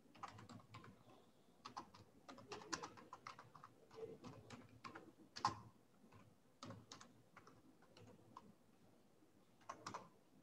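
Computer keyboard typing: faint, irregular key clicks, with one louder keystroke about five and a half seconds in and a quick cluster of strokes near the end.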